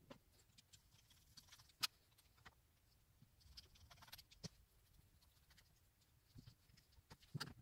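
Near silence broken by a few faint, sparse clicks and taps of small screws and a screwdriver handled against a metal switch housing, the sharpest about two seconds in.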